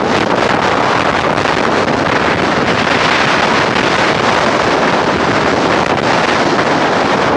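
Strong hurricane wind blowing across the camcorder microphone, a loud, steady rush of noise, with breaking surf mixed in beneath it.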